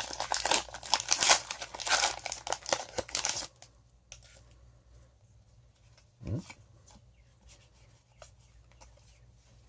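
Foil booster-pack wrapper being torn open and crinkled, loud and crackly, for about three and a half seconds; then only faint light clicks as the cards are handled.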